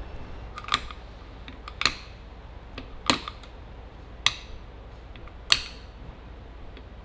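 Sharp plastic clicks, five of them about a second apart, as ignition wires are pushed one by one into a plastic ignition-wire separator clip on a Ferrari 348 engine's cam cover.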